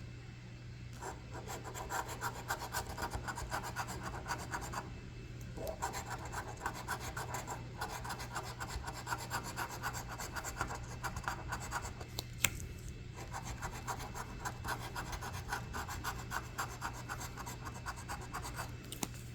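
Scratching the coating off a scratch-off lottery ticket: runs of rapid back-and-forth strokes, broken by short pauses.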